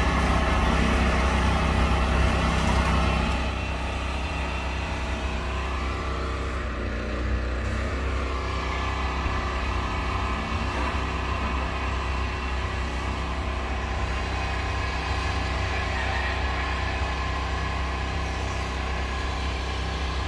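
Steady low mechanical hum with constant tones, like an idling motor, a little louder for the first three seconds.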